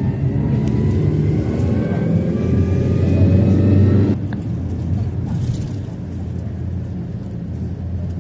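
Car engine and road rumble heard from inside a moving car. The engine's pitch climbs slowly as the car accelerates, then the sound drops off suddenly about four seconds in, leaving a steady, quieter low rumble.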